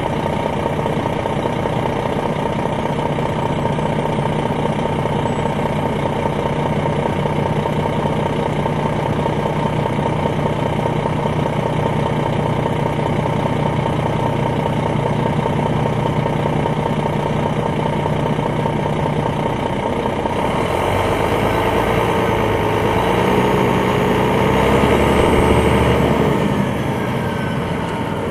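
Detroit Diesel Series 60 diesel engine of a 2001 MCI D4000 coach, heard from on board, idling steadily. About twenty seconds in the engine note rises and wavers with a deeper rumble, loudest a few seconds before the end, then eases back.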